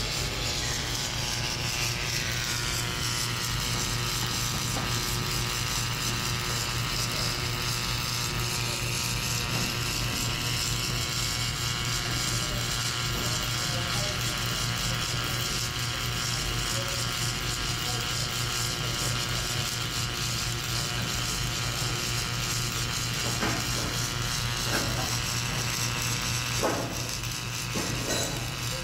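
Submerged arc welding machine running through a weld pass: a steady low hum with a hiss, and a high whine that drops in pitch over the first couple of seconds and then holds steady. A few faint clicks come near the end.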